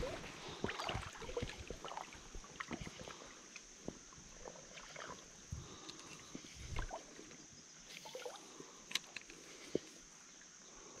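Legs in waders sloshing through high, flowing river water, with irregular small splashes and a few dull low thumps from the wading steps.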